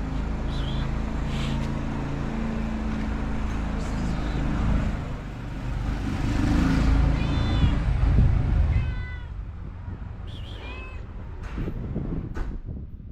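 Stray cat meowing several times, short calls that fall in pitch, over a low engine rumble that fades out about two thirds of the way through.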